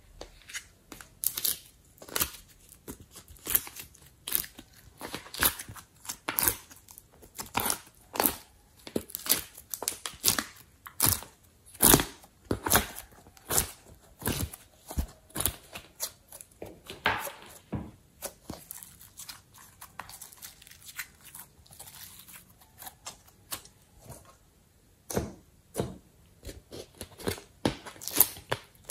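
Slime being pressed and stretched by hand, giving sticky crackles and sharp pops roughly once or twice a second. The pops ease off for a few seconds past the middle, then start again.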